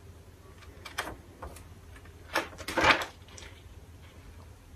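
Paper instruction booklet being handled and its pages turned: a few short rustles, the loudest about three seconds in.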